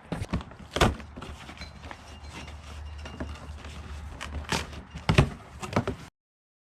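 Cardboard packaging being handled and opened: scattered knocks and rustles, a few sharp ones, before the sound cuts off suddenly near the end.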